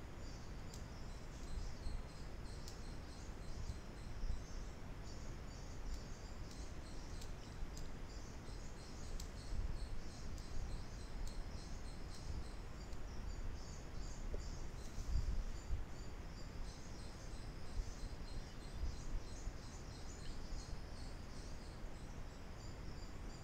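Microphone background noise: a low rumble with a continuous layer of dense, high-pitched chirping over it.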